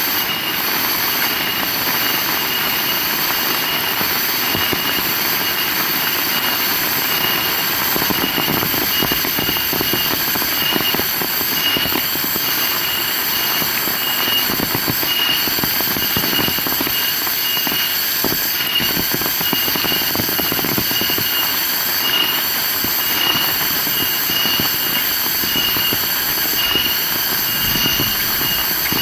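Heavy rain falling steadily, a dense even hiss. A short high note repeats about once a second through it.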